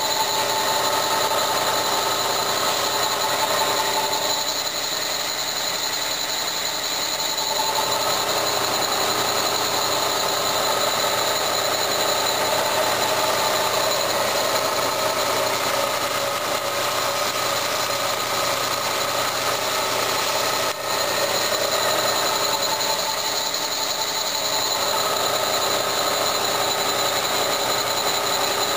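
Bridgeport milling machine running steadily, its spindle turning a precision boring head that is boring out the cylinder of a 1980 Yamaha DT100 two-stroke motorcycle engine. A continuous machine hum and whine, with the cutting noise of the boring bar in the bore.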